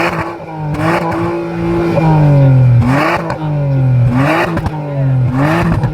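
Modified car's engine revved in repeated blips, about one a second: each rev climbs quickly with a rasping burst, then falls back slowly toward idle, over a steady low drone.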